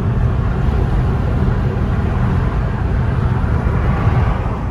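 Steady road and tyre noise inside a moving car's cabin at highway speed, heaviest in the low rumble.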